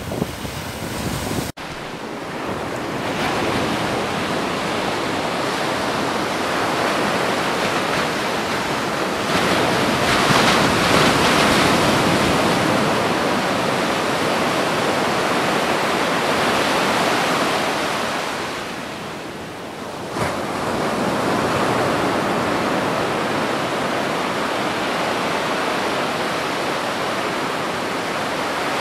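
Sea surf washing onto a sandy shore, with wind on the microphone: a steady rush of water noise that swells about ten seconds in and eases briefly near twenty seconds. There is an abrupt cut in the sound about a second and a half in.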